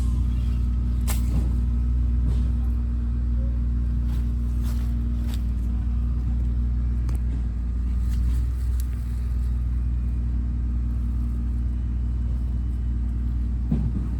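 A steady low rumble like a motor running, with a few short clicks and scrapes, which fit soil and potatoes being dug by hand.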